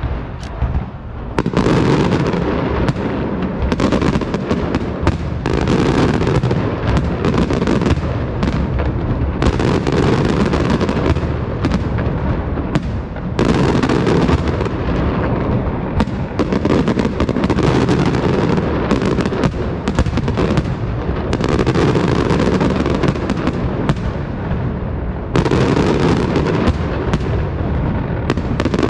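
Castillo aerial fireworks display by Pirotecnia Martí: an unbroken barrage of shell bursts and crackling reports, many bangs a second running together, after a brief lull just after the start.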